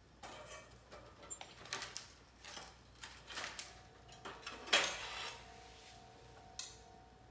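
Thick steel griddle plate being handled and rubbed while it is seasoned: a run of short scrapes and clanks, the loudest nearly five seconds in, then one more soft knock near the end.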